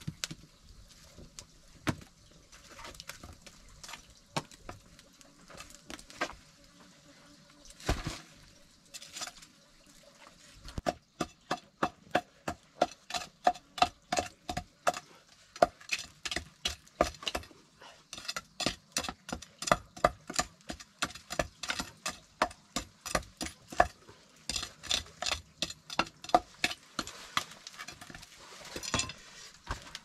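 Large knife chopping and scraping charred wood out of the burned-out hollow of a log being made into a wooden mortar. A few scattered knocks, then from about a third of the way in a fast, steady run of sharp strokes, about three a second, some with a short metallic ring.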